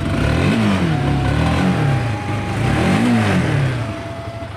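Honda CB150R's stock single-cylinder DOHC engine revved in three throttle blips, pitch climbing and dropping back each time, the last the highest.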